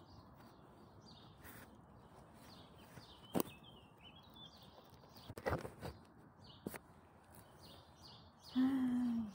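Small birds chirping over and over, with a few sharp clicks from hand-weeding in the grass by a paved edge. Near the end comes a short, loud vocal sound from a woman.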